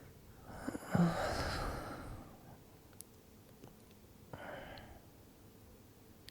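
A man's slow sleeping breaths close to the microphone: a longer, louder breath about a second in, then a softer, shorter one about four and a half seconds in.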